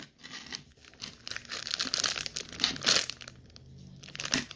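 Slime full of foam beads being squeezed, stretched and pulled apart by hand, giving irregular crackling and popping.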